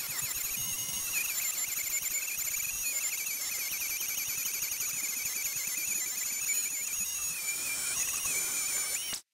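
Dremel rotary tool running at high speed, its 1.5 mm end mill cutting a car key blank as the key is guided through a copying jig. It makes a high-pitched whine that wavers up and down in pitch and cuts off suddenly near the end.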